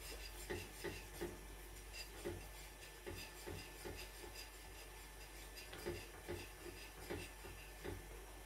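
A spoon stirring and scraping thick, cooked custard cream in a glass saucepan: soft rubbing strokes repeated about twice a second. The cream has thickened to a porridge-like consistency.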